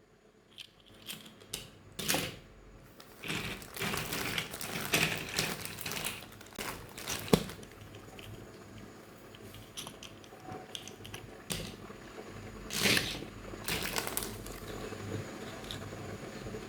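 Handling while unboxing small plastic toy animal figures: packaging crinkling and rustling in uneven spells, with scattered clicks and taps of hard plastic. A single sharp click stands out about seven seconds in.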